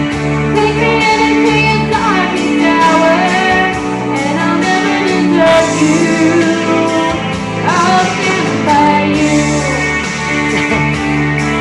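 A woman singing a song over amplified guitar-led backing music.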